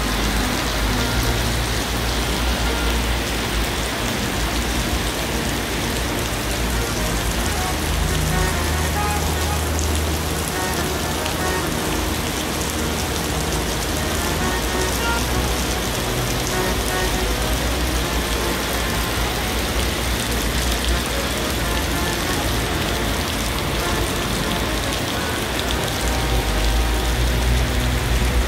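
Heavy rain pouring onto pavement and puddles, a steady hiss, over a low rumble of traffic on the wet road.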